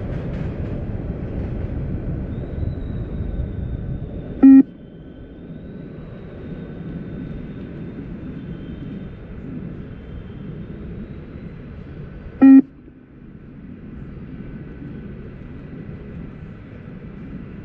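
Two short, loud beeps from the beep test (multi-stage shuttle-run fitness test) recording, about eight seconds apart, over a steady background rumble. Each beep marks the end of a 20 m shuttle; the eight-second spacing matches level 2 of the test.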